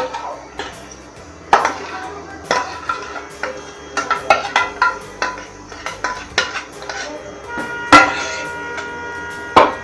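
Steel mixing bowl knocking and scraping against a plastic container as the ice cream mixture is emptied into it: a run of irregular clinks and knocks, the loudest about eight seconds in.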